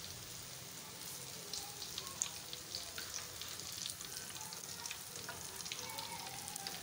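Besan-battered eggplant slices (baingan pakoras) deep-frying in hot ghee: a steady sizzle with many small scattered pops and crackles.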